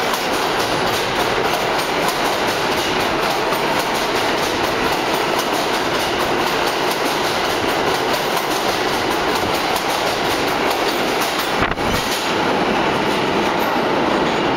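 Kawasaki R142A subway train running past the platform as it leaves the station: a loud, steady rumble with a fast clatter of wheels over the rails. About twelve seconds in, the sound breaks off sharply and then resumes at much the same level.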